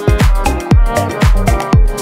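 Electronic dance music with a steady, fast kick-drum beat.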